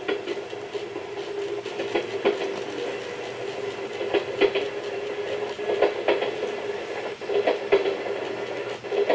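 JNR 101 series electric train running sounds played from a TOMYTEC N-gauge sound controller: a steady motor hum with irregular clacks of wheels passing over rail joints.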